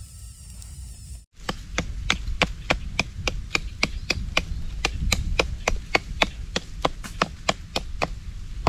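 A knife chopping at a thin wooden stick held upright on a tree-stump block: a steady run of sharp wooden chops, about three a second, starting about a second and a half in.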